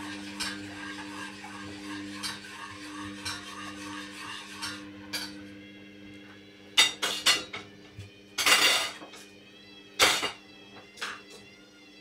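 Hoover Dynamic front-loading washing machine turning its drum against a very unbalanced load: a steady motor hum with light knocks about once a second, then several loud metallic clatters and one longer rattle from about seven seconds in.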